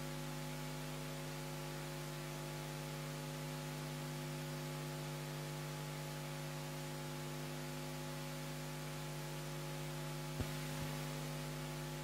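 Steady electrical hum with a constant hiss, several even tones with the strongest low down. About ten seconds in there is one short sharp click, then a fainter one just after.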